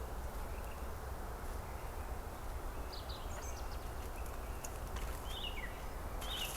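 Steady outdoor background noise with a low rumble, and a few short, high bird chirps from about halfway through.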